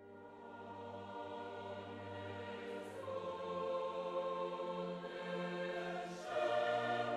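Background music: a choir singing slow, long-held chords, the chord changing about three seconds in and again near the end.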